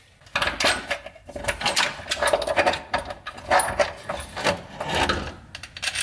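Irregular metallic clinks and clanks of hand tools and a steel New Edge Mustang rear lower control arm as the arm is worked out from under the car.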